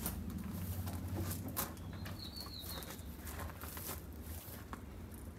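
Low rumble and scattered clicks of a hand-held camera being carried and walked out into a garden, with a brief high bird chirp about two seconds in.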